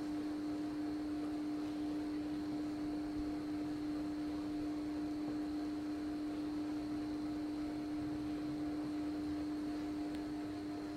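Steady hum made of one strong low tone with a few fainter fixed tones above it, over a faint hiss.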